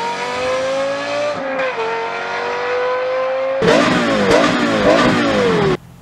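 Lexus LFA V10 engine accelerating hard, its pitch climbing steadily with a brief dip at a gear change about a second and a half in. From about halfway it gets louder, with a rapid string of rises and falls in pitch.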